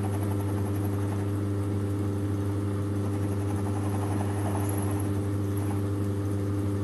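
1930s Schaublin 102 toolmaker's lathe running steadily under power, its motor and belt drive giving a constant hum, while the tool takes a light cut turning down the edge of a bolt head.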